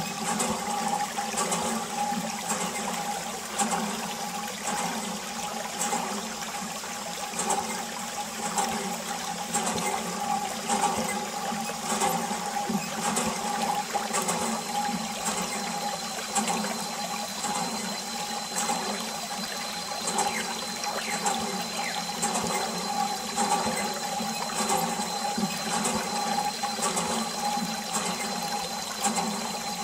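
A thin jet of water from a small plastic tube spraying and splashing onto plastic toy vehicles, a steady running and trickling.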